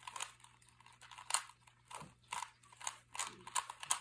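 Rubik's cube faces being turned by hand during a solve: an uneven run of short plastic clicks and scrapes, about two or three a second.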